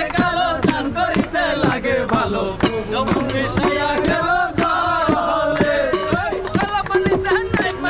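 A group of men singing a Bengali song together, with rhythmic hand-clapping and a steel bowl beaten by hand as a drum.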